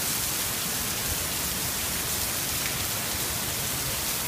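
Heavy rain pouring down in a thunderstorm downpour: a steady hiss of rain hitting roofs, cars and pavement.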